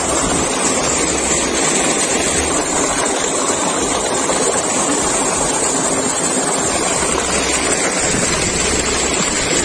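Irrigation water gushing from a tubewell pipe into a concrete tank: a steady, loud rushing splash.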